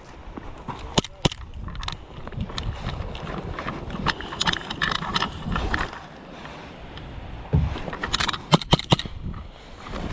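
Scuffing and crunching of movement over dry ground, broken by sharp airsoft gun shots: two about a second in and a quick run of several near the end.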